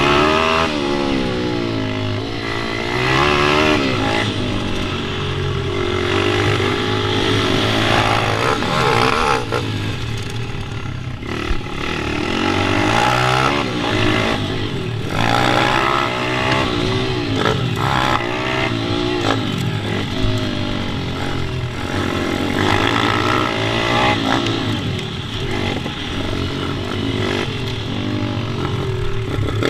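Pit bike engines revving on a track, their pitch climbing and dropping over and over as the bikes accelerate and ease off, with more than one engine heard at once at times.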